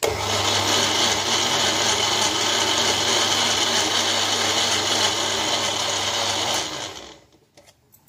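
Electric mixer grinder running steadily, grinding garlic and chillies into a masala paste. It is switched off near the end and its motor winds down.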